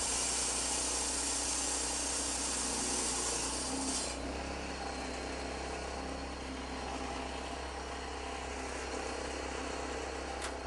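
Power cut-off saw running and cutting concrete paving stones along the marked border. The blade's hiss is loudest for the first four seconds, then eases while the motor keeps running steadily.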